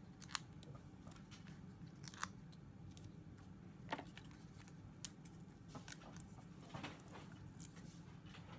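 Faint, scattered clicks and light rustles of paper being handled: foam dimensional adhesives peeled off their backing sheet and pressed onto a small die-cut cardstock piece.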